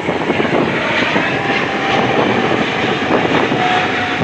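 Jet airliner taking off, its engines at takeoff thrust: loud, steady jet noise with a faint whine that falls slightly in pitch.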